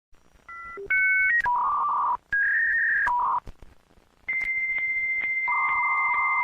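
Dial-up modem connecting. A run of short electronic phone tones is followed by the long steady answer beep, broken by regular clicks about twice a second. The warbling two-tone handshake screech then comes in near the end.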